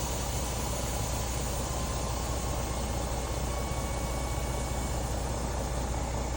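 Semi-truck diesel engine idling steadily, a low even rumble.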